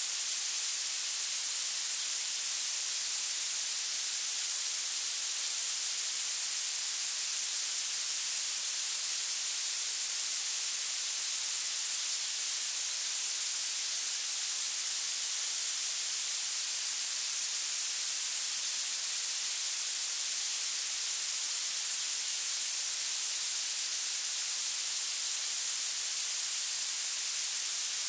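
Violet noise: a steady, unbroken synthetic hiss whose loudness climbs steeply with pitch. It is dominated by the very highest frequencies and has almost no bass.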